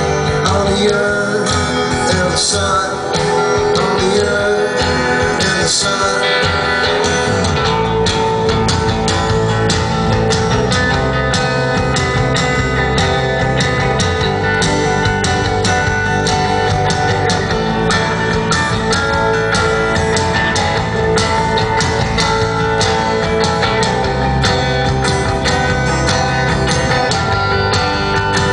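A live band playing a guitar-led song: electric guitars over a drum kit and keyboard, with the drum beat coming through more clearly from about a third of the way in.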